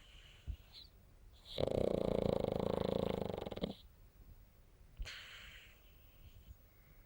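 Sleeping pug snoring. One loud snore of about two seconds is followed, about a second later, by a fainter, breathier one.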